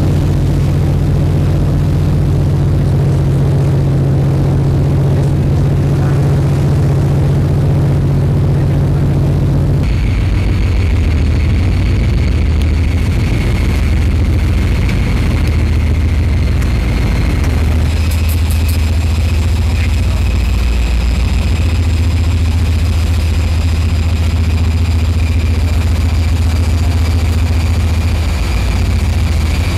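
Steady low drone of a warship's machinery heard on deck, its engines and ventilation blowers humming. Later a steady high whine joins it. The mix shifts abruptly about ten and eighteen seconds in.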